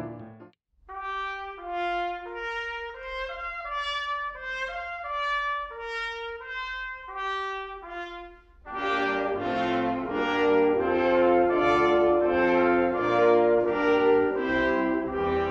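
Instrumental background music. It cuts out briefly at the start, then plays a melody of single held notes, and about halfway through swells into a fuller, louder passage with many notes sounding together.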